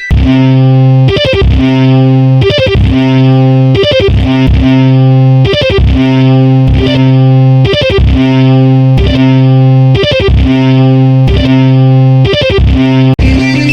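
Music: a distorted electric guitar holds a low note over a beat of repeated drum hits.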